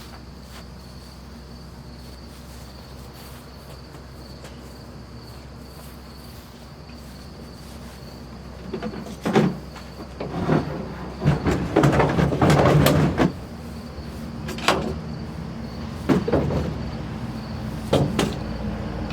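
Crickets trilling steadily in the background; about nine seconds in, a run of knocks and clunks begins, like a door or hatch being opened and heavy things being shifted, with a few more single knocks near the end.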